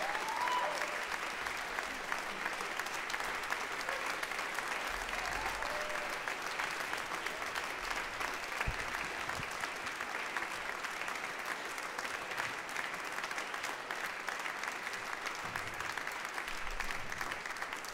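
Audience applauding steadily, with a few short rising cheers over the clapping.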